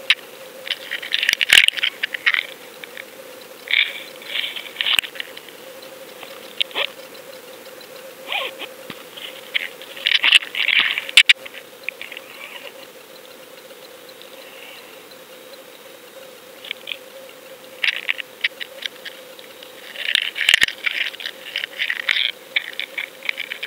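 Bursts of rapid clicking and rattling over a steady hum, picked up through an underwater fishing camera's housing. The clicking comes in several separate bursts with quieter stretches between.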